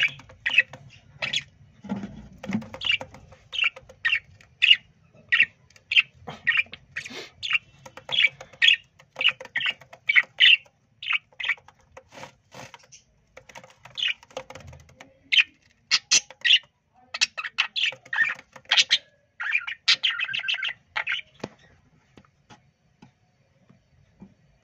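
Budgerigars chirping in short, high calls, two or three a second, with a quick flurry of chatter before they stop a few seconds before the end.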